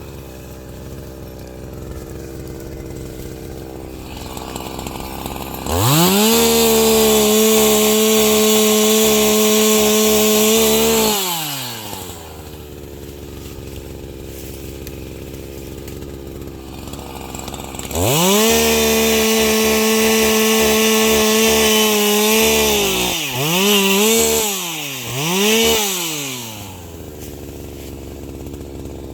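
Chainsaw idling, then opened up to full throttle twice for about five seconds each, bucking firewood logs, with two short blips of the throttle near the end before it drops back to idle.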